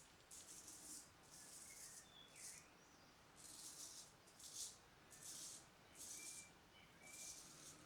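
Filarmonica 4/8 straight razor scraping through lathered stubble in short, faint strokes, about nine of them at roughly one a second.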